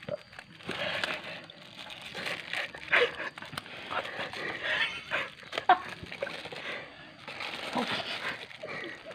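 Thin plastic bags crinkling and rustling on and off as hands handle them.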